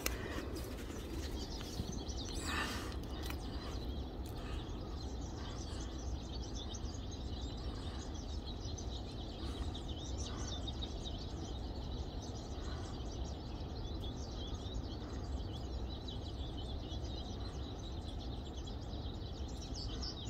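Small birds chirping continually over a steady low background rumble.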